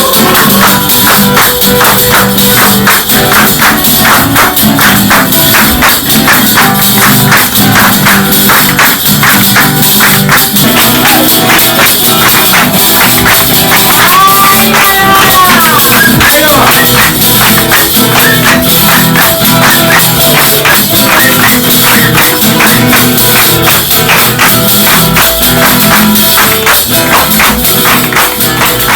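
Loud music driven by a fast, dense percussion rhythm over sustained lower tones, with a brief wavering pitched line about halfway through.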